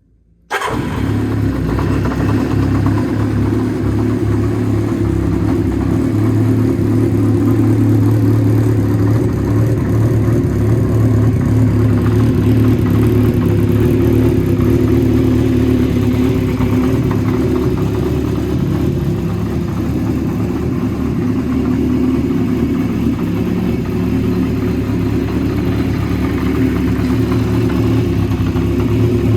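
Kawasaki GPZ400R's inline-four engine idling steadily through an aftermarket BEET silencer; the sound comes in abruptly about half a second in.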